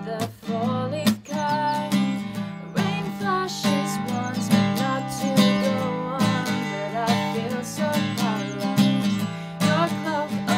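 Acoustic guitar strummed in a steady rhythm, with a woman's voice carrying a wavering melody above it.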